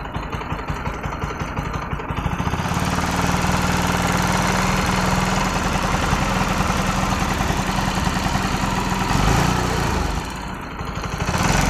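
Bajaj Pulsar NS200's single-cylinder engine running; it gets louder about two and a half seconds in and holds steady, easing off briefly near the end. The owner finds an irritating noise from the engine in this running and points to where it comes from.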